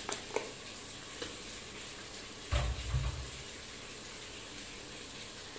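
Meat, sliced onions and spices sizzling gently in hot oil in a pressure-cooker pot, with a couple of light clicks of a wooden spoon against a glass bowl at the start and a dull low thump about two and a half seconds in.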